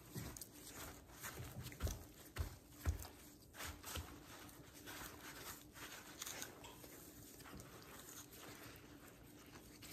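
Paper towels rustling and crinkling as gloved hands press and dab them onto raw pork spare ribs to dry the meat, with a few soft low thumps about two to three seconds in.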